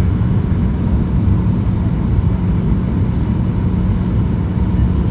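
Airliner cabin noise during the landing approach: a steady, even low rumble of engines and airflow heard from inside the cabin.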